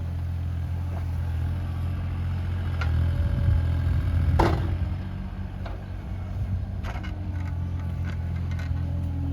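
Bobcat E37 mini excavator's diesel engine running steadily and working harder for a second or two in the middle, as the bucket digs hard, compacted soil. There is a sharp metallic clank about four and a half seconds in and a few lighter knocks.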